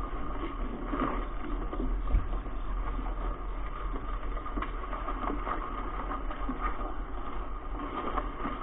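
Steady road and engine noise inside a moving car's cabin, picked up by a dashcam microphone, with a few faint ticks.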